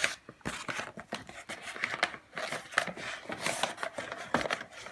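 Irregular rustling, scraping and light knocks of things being handled and moved about, with no steady machine sound.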